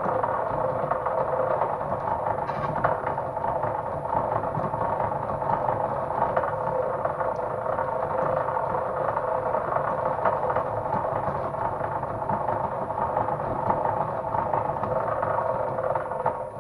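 An electric power tool running steadily under load, with a constant motor whine and rattle, stopping suddenly near the end.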